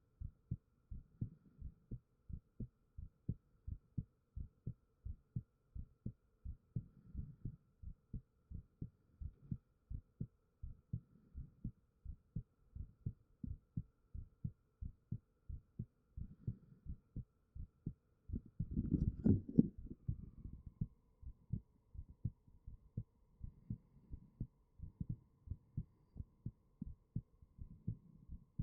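A human heartbeat picked up close on a binaural microphone: a steady run of low, soft thumps. About two-thirds of the way through, a louder scuffing noise lasts about a second over the beats.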